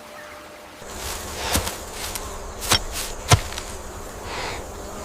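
Insects buzzing as a steady background, cut by three sharp snaps or clicks about a second apart in the middle.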